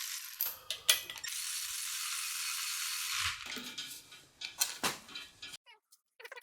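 Metal clinks and knocks of hand tools and engine parts during an engine teardown, with a steady rasping stretch from about one to three seconds in.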